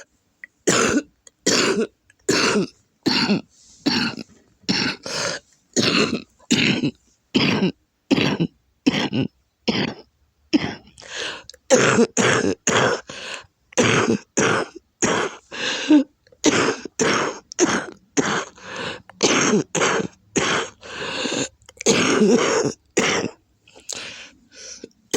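A woman's chesty, congested coughing fit from lungs congested during a lupus flare: dozens of harsh coughs in close succession, with a brief let-up about ten seconds in.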